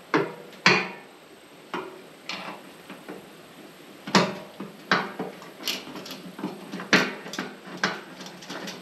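Small bolts and washers clicking and clinking against a metal sump flange as they are set in place one by one around it: about a dozen sharp clicks at uneven intervals.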